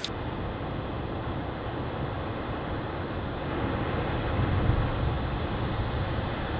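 Steady rushing noise of breaking ocean surf, growing a little louder about four seconds in.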